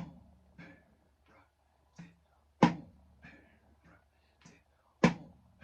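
Drum struck with sticks in a slow rudiment pattern with accents: three loud accented hits, at the start, about two and a half seconds in and near the end, with softer taps between them.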